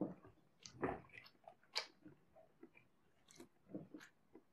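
A person chewing a mouthful of burger: irregular, short clicks and crackles of chewing, the loudest right at the start, about a second in and near the two-second mark.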